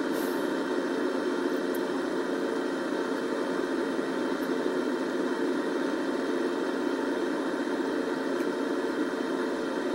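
Volvo crawler excavator's diesel engine running steadily.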